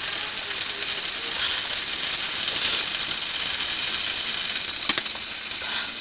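Coarse dishwasher salt pouring through a plastic funnel into a dishwasher's salt reservoir: a steady granular hiss, with a single sharp click about five seconds in.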